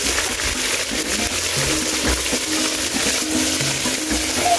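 Fish sizzling steadily as it fries in hot oil in a pot, with background music playing over it.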